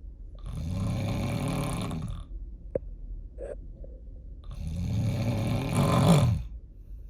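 A person snoring heavily, a deep snore likened to a diesel truck: two long snores about four seconds apart, the second louder and building before it stops abruptly. A brief click falls between them.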